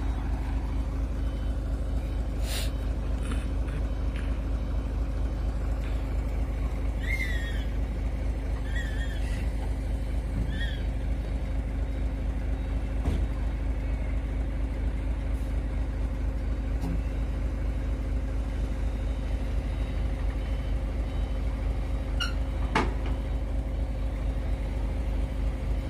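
Heavy truck diesel engine running steadily, with a few short high squeaks around the middle and a couple of sharp clicks.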